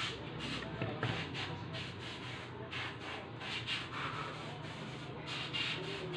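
Irregular rubbing, scraping and small clicks from a charger circuit board and its power cord being handled and turned over on a wooden workbench during soldering, over a low steady hum.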